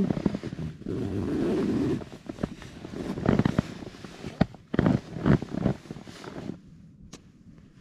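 Nylon down sleeping bag and down jacket rustling and crinkling as a dog squirms in a person's arms, with a low rough rumble through the first two seconds. It settles to near quiet after about six and a half seconds.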